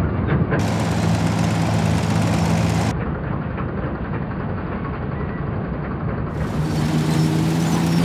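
Fordson Super Dexta's three-cylinder diesel running under load, driving a side-mounted JF MS5 combine harvester as it threshes wheat. It is a steady mechanical drone with a low hum under it, and it changes abruptly about every three seconds.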